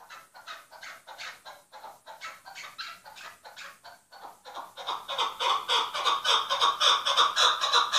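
Chukar partridge calling: a fast run of short, repeated clucking notes, three to four a second. The notes get much louder and a little quicker about halfway through.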